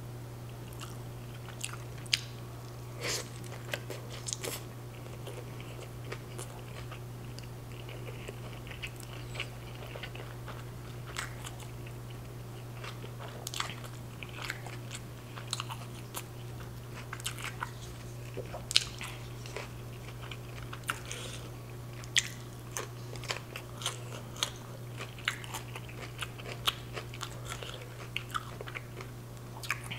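Close-miked chewing of a pork carnitas taco, with many short, sharp mouth clicks and small crunches. A steady low hum runs underneath.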